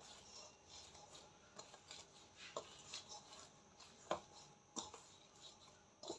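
Quiet hand-kneading of risen yeast dough to knock the air out: soft rubbing with a few faint taps.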